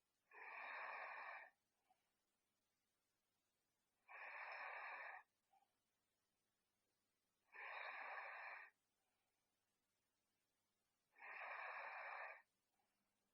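A sleeping person's soft, breathy snoring: four breaths, each about a second long, roughly every three and a half seconds, with near silence between them.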